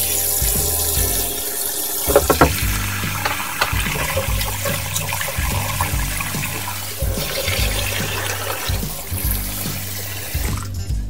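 Tap water running into a stainless steel bowl while sliced rice cakes are swished and rinsed by hand, with a brief clatter about two seconds in; the water stops near the end.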